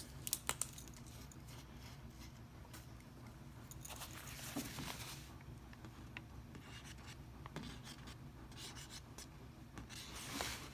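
Faint handling noises of an ink-painting sheet being lifted and tilted over newspaper: a few small clicks at the start, then soft rubbing and rustling of paper twice, about four seconds in and near the end.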